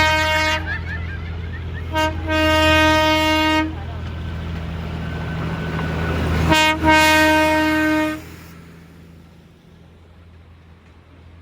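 Darjeeling toy train locomotive sounding its horn in blasts: one ending about half a second in, then a short toot followed by a long blast around 2 to 3.5 seconds in, then another short toot and long blast around 6.5 to 8 seconds in. A steady low hum runs beneath until the second pair of blasts, and only quieter rumbling follows.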